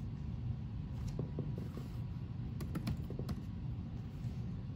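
Keystrokes on an HP laptop keyboard typing a short word: two quick runs of clicks, about a second in and again near three seconds, over a low steady hum.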